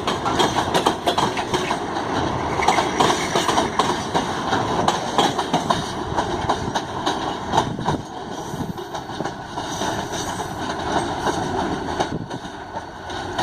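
Ballast train's wagons rolling past, their steel wheels clattering in a dense run of clicks and knocks over rail joints, with a steady rumble underneath that eases slightly about two-thirds of the way through.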